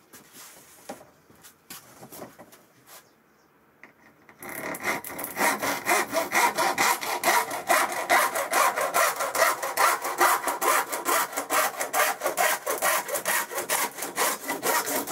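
Fine-tooth Irwin panel saw cutting across a hollow PVC ceiling cladding board in quick, steady strokes, starting about four seconds in after a few light handling knocks.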